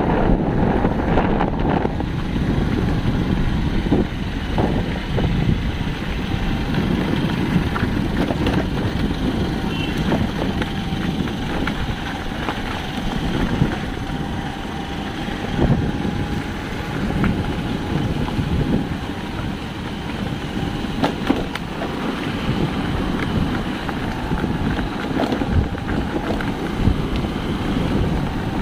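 Steady wind rumble on the microphone over a running vehicle, with a few scattered knocks.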